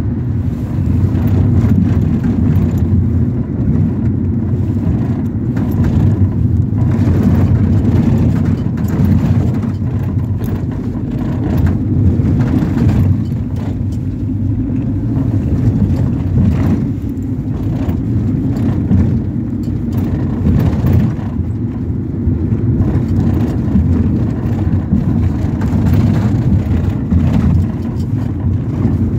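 Ford Transit minibus driving, heard from inside the cabin: a steady low rumble of engine and road noise that swells and eases a little.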